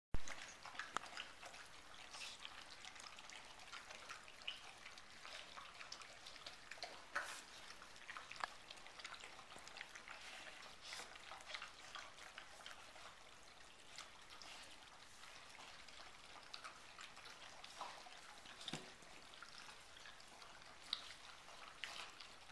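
Gordon setter puppies eating from a steel bowl and moving about: faint, scattered small clicks and crackles throughout, with one short falling sound a little before three-quarters of the way through.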